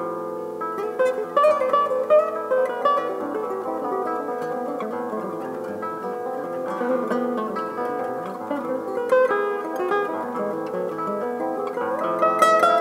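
Classical guitar playing a piece, a run of plucked notes over lower bass notes, growing louder near the end.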